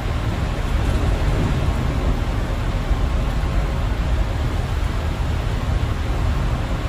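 Steady rumble and hiss of a bus driving on a rain-soaked road in heavy rain, heard from inside the cabin: engine and tyre noise on the wet road mixed with rain.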